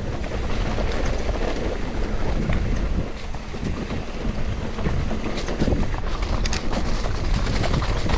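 Forbidden Druid mountain bike riding down a muddy dirt singletrack: wind buffets the camera microphone, and the tyres rumble over the ground. Frequent clicks and rattles come from the bike over the bumps, thickest in the second half.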